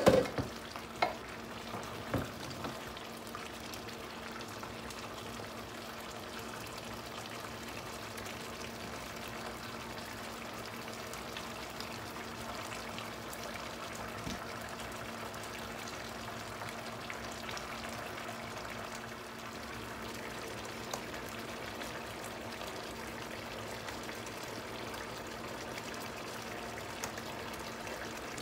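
Sliced potatoes and onions sizzling and simmering in oil and water in an uncovered electric skillet, a steady hiss. In the first two seconds or so there are a few sharp knocks as the glass lid is taken off and set down.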